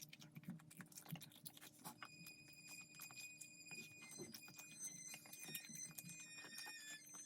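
Faint scattered clicks and taps, joined about two seconds in by soft, high, tinkling background music.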